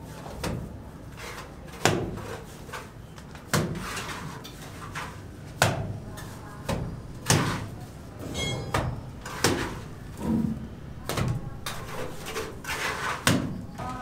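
Irregular knocks and scrapes of manual building work, a sharp knock or a scraping swish every second or two, with a brief high ringing note about two thirds of the way through.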